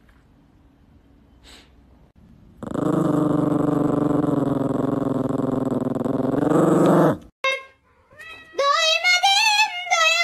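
A small long-haired dog growling in one long, steady, low growl of about four and a half seconds that stops abruptly. Near the end, a high-pitched voice starts up in rising and falling lines.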